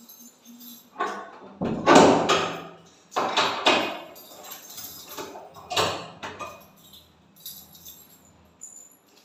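Wooden door being shut and locked: a few knocks and rattles from the door and its latch, the loudest about two seconds in.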